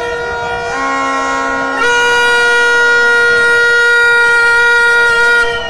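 Horns blown in a crowd, holding long steady notes at one pitch. A lower note sounds briefly about a second in, and the sound gets louder about two seconds in as more horns join, then drops just before the end.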